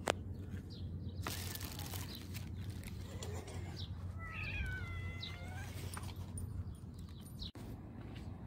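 A stray cat gives one drawn-out angry yowl of about a second and a half at another cat, its pitch dipping and rising again. A short rushing, hiss-like noise comes about a second in.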